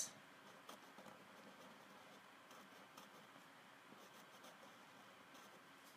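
Faint scratching of a felt-tip marker coloring on paper.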